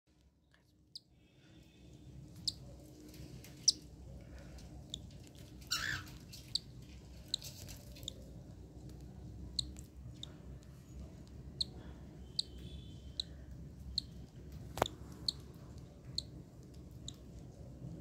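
Newly hatched cockatiel chick peeping: thin, high-pitched cheeps about once a second, with a sharp click a few seconds before the end.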